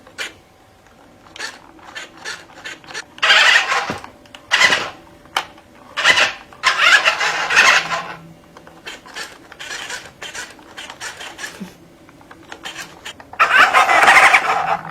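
Remote-control Monster Truck Mater toy truck running in several bursts of a second or two, its small electric motor and gears whirring, with scattered clicks and clatter between the runs.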